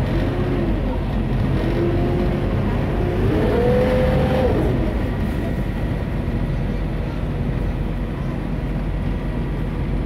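Friendship Boat's engine running with a steady low hum as the boat comes alongside the dock, with a brief rising-and-falling whine a few seconds in.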